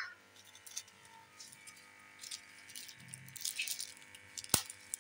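Quiet background with a faint steady hum, scattered light ticks and clinks, and one sharp click about four and a half seconds in.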